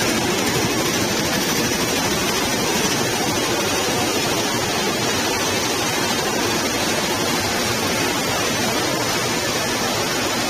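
Steady, unbroken machinery noise from the annealing section of a PVC flooring production line: an even rush with no distinct tones, rhythm or impacts.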